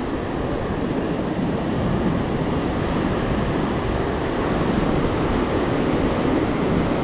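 Surf washing onto a beach as a steady rush of waves, with wind on the microphone.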